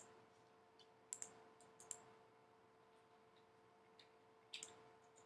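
Faint scattered clicks of a computer mouse, a handful of them with some in quick pairs, over a steady low hum.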